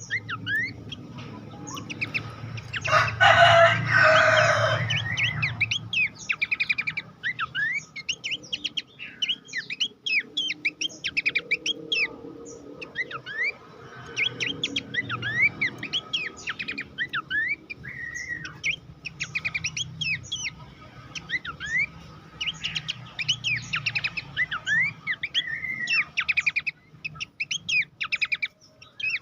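A pelanduk semak (babbler) singing, a rapid run of short chirps and quick rising and falling whistles repeated in bursts. A louder, harsher call stands out about three to five seconds in.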